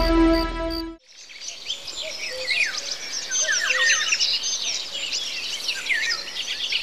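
Background music cuts off about a second in, and a chorus of many songbirds fades in, singing and chirping with quick falling whistles over a faint outdoor hush.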